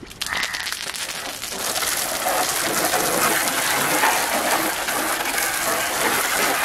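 Garden hose jet splashing onto a Suzuki Gixxer motorcycle's plastic fairing and windscreen, a steady rush of spattering water that grows louder about two seconds in.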